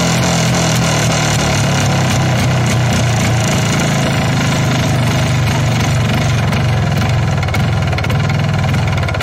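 MZ ETZ 250's single-cylinder two-stroke engine idling steadily.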